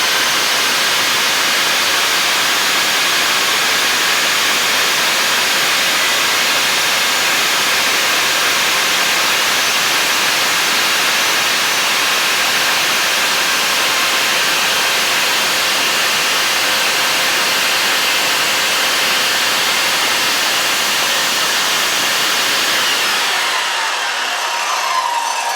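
Miter saw motor running steadily with a steady whine for about twenty-three seconds while the wedge slot is cut into the handle. It is then switched off and winds down, its pitch falling near the end.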